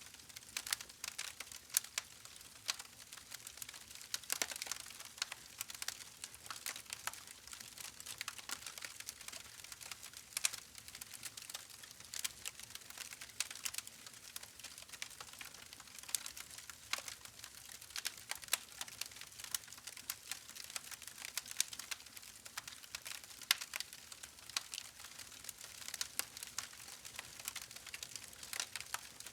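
Wood fire crackling and popping, with irregular sharp snaps over a soft steady hiss of burning.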